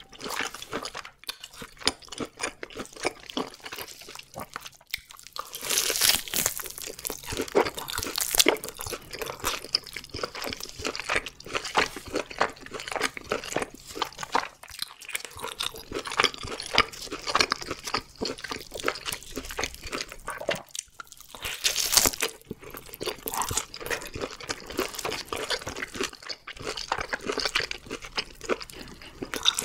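Close-miked chewing and biting of a seared tomahawk steak: wet, sticky mouth sounds with crunching. It grows louder for a couple of seconds about six seconds in, and again at about twenty-two seconds.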